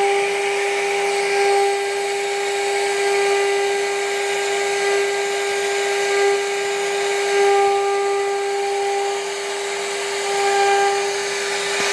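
CNC router's HSD spindle running at high speed with a steady high whine while its router bit cuts a relief pattern into a wooden panel, the cutting hiss swelling and easing as the bit moves through the wood.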